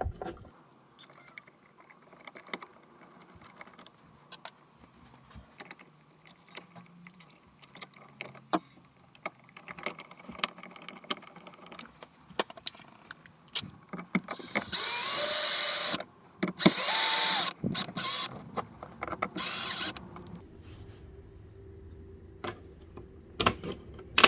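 Scattered small clicks and knocks of hands working on wiring, then a power drill running in three short bursts, about a second each, near the end, the kind of run used to drive in mounting screws.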